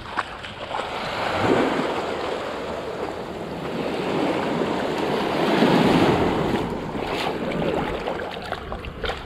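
Shallow ocean surf washing and sloshing right at the waterline, swelling about a second and a half in and again around six seconds.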